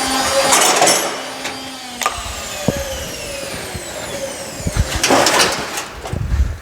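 Beko washing machine being run to destruction, clattering and knocking as its motor and drum wind down in a falling whine, with a loud rattling crash about five seconds in.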